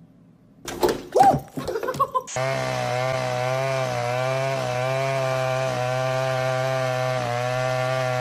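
About a second in, a short burst of clattering with a brief rising-and-falling cry. Then a loud, steady buzzing drone like a chainsaw running sets in and holds: a chainsaw sound effect laid over a cat shredding a cardboard box.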